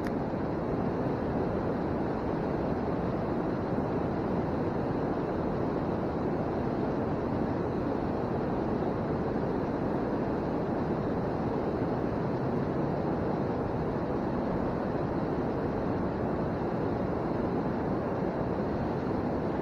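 Steady rushing of river water, an even noise with no break or change.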